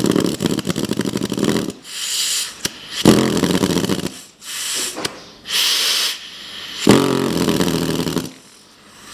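Licota ATA-1401 pneumatic valve lapping tool run on compressed air, running free for its first try: three short bursts of rapid mechanical pulsing, with sharp hisses of air between them.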